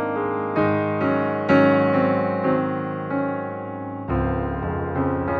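Calm, slow background music: soft sustained notes struck roughly once a second, with a deep low note coming in about four seconds in.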